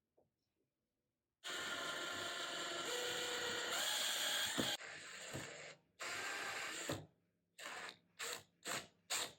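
Power drill driving screws to fasten a metal corner brace to 2x4 framing. It makes a steady whine for about three seconds, then two shorter runs, then four quick trigger bursts near the end as the screw is snugged down.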